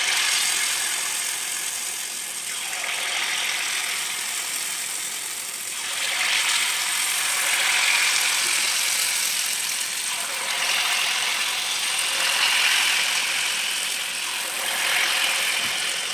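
Unniyappam batter deep-frying in hot coconut oil in an unniyappam pan: a steady sizzling crackle that grows louder and eases off several times as more batter fills the cavities.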